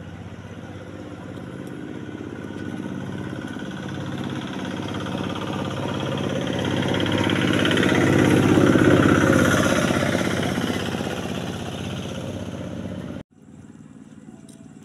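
Engine running with a steady hum that grows louder to a peak about nine seconds in and then fades. It cuts off suddenly near the end, and a fainter hum follows.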